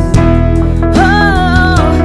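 Live band playing a slow pop ballad, with a singer holding a wavering note from about a second in.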